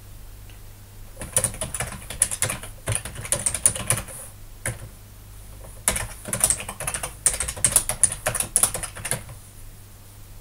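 Computer keyboard typing in two quick runs of keystrokes with a short pause about five seconds in: a GitHub username typed at a terminal prompt, then the password.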